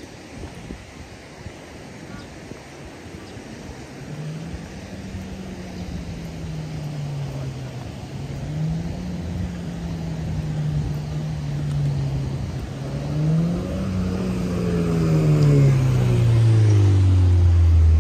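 A motor vehicle's engine on the road, its note rising and falling several times as it approaches. It grows louder and drops in pitch as it passes near the end.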